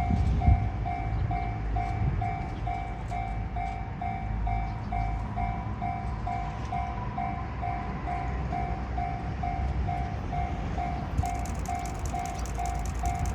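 Japanese level-crossing warning bell ringing steadily, about three electronic dings a second, over the low rumble of a train on the line.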